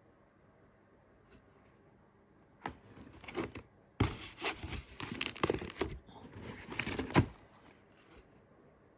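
Packaging being unwrapped by hand: paper or plastic crinkling and tearing in a run of rustles, starting a few seconds in, loudest in the middle and stopping abruptly near the end.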